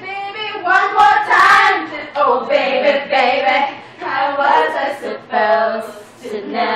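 Women's voices singing a song unaccompanied, in long held notes broken into phrases.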